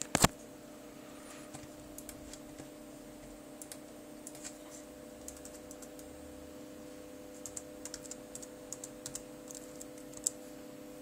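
Laptop keyboard being typed on: scattered, irregular key clicks in short runs, with a sharper knock right at the start, over a steady low hum.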